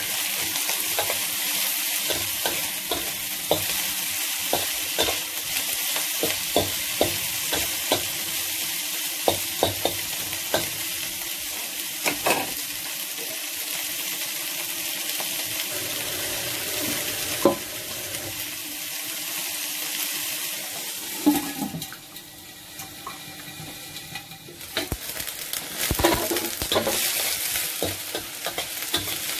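Vegetables sizzling as they are stir-fried in a metal wok, with a spatula scraping and clicking against the pan, the clicks mostly in the first half. The sizzle drops off for a couple of seconds a little past two-thirds through, then comes back.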